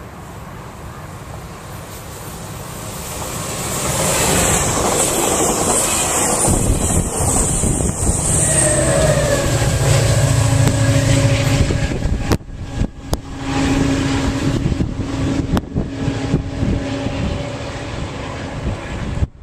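NCTD Coaster commuter train passing close by: wheel and rail noise builds to a loud rush as the cars go past, then the diesel locomotive's engine drones steadily as it passes and pulls away. A few sharp clicks sound about twelve to sixteen seconds in.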